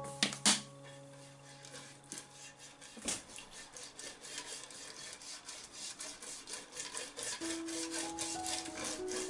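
Silicone basting brush rubbing back and forth over the ribbed metal plate of an electric contact grill to spread oil, in quick scratchy strokes that come thick and steady from about three seconds in. Two sharp knocks open the sound.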